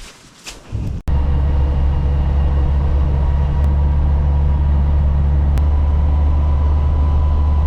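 Steady, loud low rumble of a vehicle driving, heard from inside, beginning abruptly about a second in.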